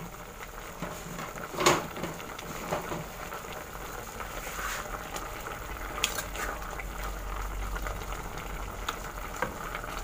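Beef and onion sauce simmering in an open pressure-cooker pot while a spoon stirs it, with a few light clicks of the spoon against the pot, the loudest about a second and a half in.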